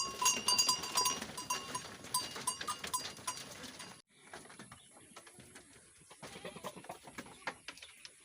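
Goats moving about in their pen with a small bell clinking over and over; about four seconds in the sound cuts off abruptly, leaving only faint shuffling and clicks.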